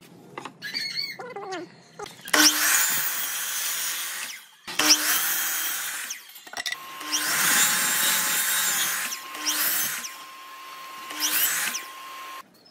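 Electric miter saw cutting wooden boards: about five short cuts in a row, each a loud burst of the spinning blade through the wood, with the motor's pitch rising at the start and falling away at the end of each cut.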